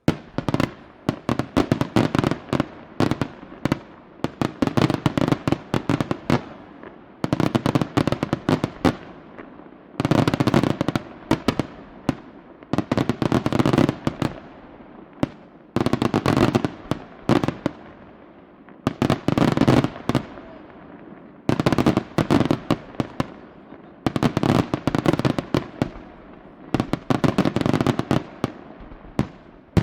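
Fireworks display: rapid volleys of sharp bangs and cracks come in rounds, one dense cluster every two to three seconds.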